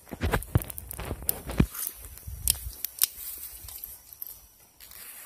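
Handling noise as the camera is picked up and moved: a quick run of knocks, low thumps and rustles in the first couple of seconds, then scattered lighter clicks and rustling.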